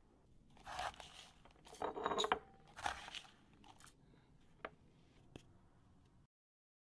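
Hands working a metal spice tin and a spoon: a few scraping, rustling bursts as dry ground pepper mix is scooped and tipped onto coarse salt in a bowl, then two light clicks of the spoon. The sound cuts out abruptly near the end.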